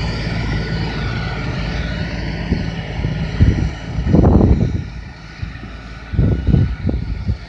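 2017 LS XR4155H 55 hp diesel tractor engine running steadily. It drops in level about halfway through, and several low rumbling surges come in between.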